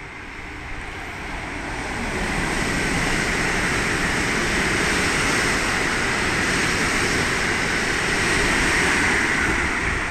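JR electric commuter train passing the platform at speed on the far tracks without stopping: a steady rolling noise of wheels on rail that builds over the first two seconds, holds, and falls away at the very end.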